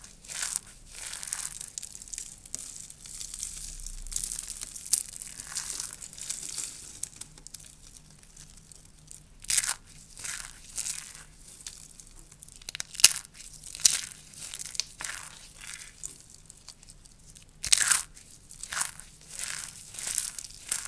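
Dry soap curls crunching and crumbling as a soap-curl teddy bear is crushed: crisp, crackly crumbling, with a few sharp loud crunches about ten, thirteen and eighteen seconds in.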